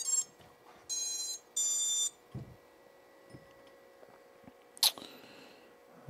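FPV drone's brushless motors sounding the Hobbywing BLHeli_32 ESC's power-up tones as the LiPo battery is connected: three short, high beeps in the first two seconds. A short, sharp noise comes about five seconds in.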